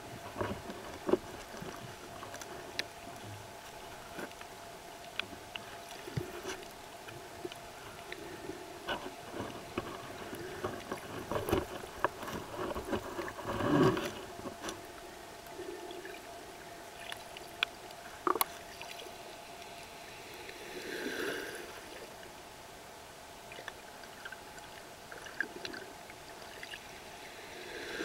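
Underwater sound in shallow surf: a steady hiss of moving water scattered with sharp clicks and crackles, and a rushing swell a few times as waves break overhead and churn the water.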